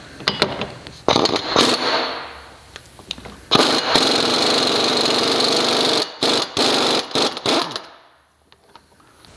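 Impact wrench hammering on the 34 mm front axle nut of a 2002 Buick LeSabre. It gives a short burst about a second in, runs steadily for about two and a half seconds from three and a half seconds in, then gives several quick short bursts before stopping.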